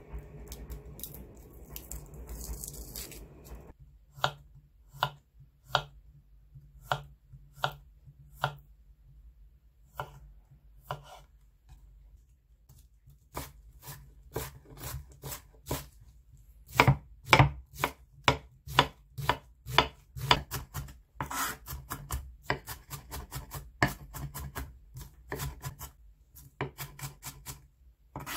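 Chef's knife chopping onion on a wooden cutting board: a soft rustle at first, then single knife strikes spaced out, and after a short pause the strokes quicken into rapid chopping in the last few seconds.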